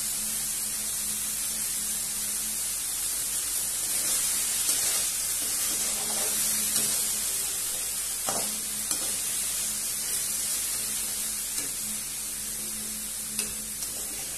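Dry fish and sun-dried bamboo shoot mixture frying in a steel kadai with a steady high sizzle. A spatula stirs it, and its scrapes and clacks against the pan come a few times.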